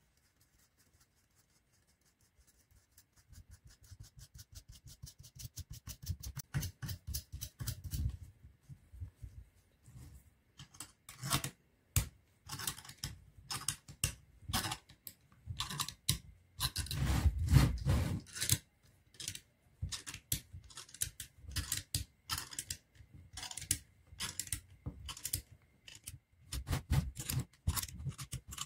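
Steel nuts being spun down the long threaded through-bolts of a small electric pump motor's end cap, by fingers and then a small tool: runs of rapid metallic clicking and rattling that come in bursts, some speeding up, after a near-silent start.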